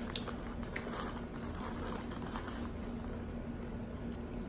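Quiet room tone: a steady low hum, with a few faint small clicks in the first second or two.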